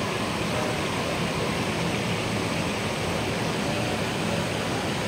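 Steady rushing and bubbling of hot spring water welling up between rocks into a shallow stream pool.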